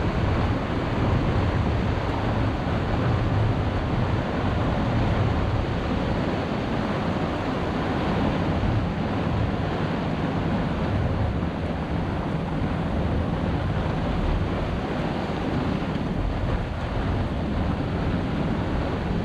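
Steady storm wind rushing over a sailboat's cockpit and buffeting the microphone, with the rough sea washing against the boat, unbroken throughout.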